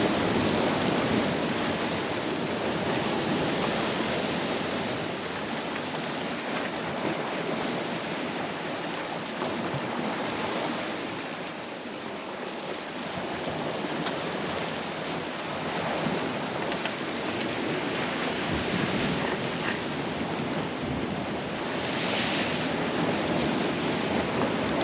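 Sea surf washing against the shore, swelling and easing, with wind buffeting the microphone.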